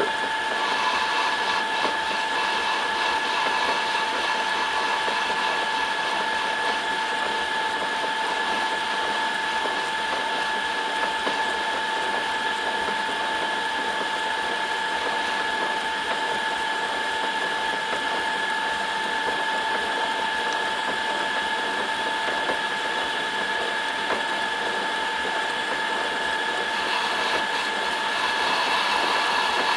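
Small metal lathe running steadily while the tool takes a light cut on the tapered head of a slender valve pin: a steady two-note whine over a hiss, getting a little louder and brighter near the end.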